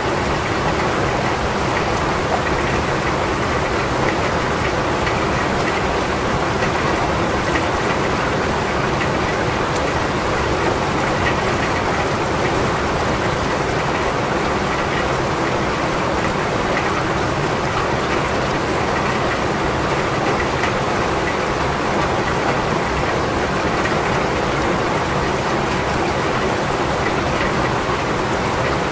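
Steady rain, an even hiss of falling drops with no pauses or distinct events.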